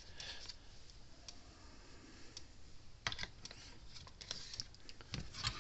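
Faint scattered clicks and knocks from handling the plastic case and parts of an opened electric fence charger, with a sharper couple of knocks a little after halfway and again near the end.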